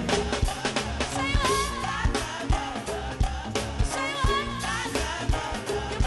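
Live gospel praise music: several voices singing together over a band with a steady drum beat, congas and electric guitar.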